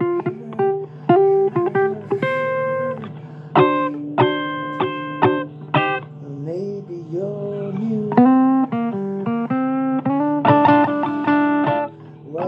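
Blues guitar music: plucked single notes and chords with sharp attacks, some notes bent upward in pitch, over a steady low drone.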